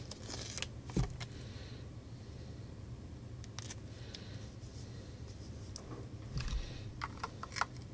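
Faint handling noise of small parts being moved on a silicone work mat: a light tap about a second in, another a few seconds later, and a run of small clicks and scrapes near the end, over a low steady hum.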